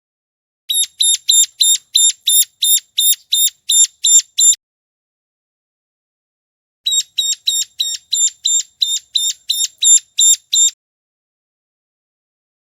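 Ciblek gunung (a prinia) calling: two runs of about a dozen sharp, high repeated notes, roughly three a second, each run lasting about four seconds with a pause of about two seconds between.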